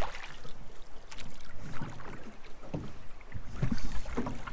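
A rowed boat's oar dipping and pulling, with water sloshing and lapping against the hull in irregular splashes over a steady low rumble of wind and current.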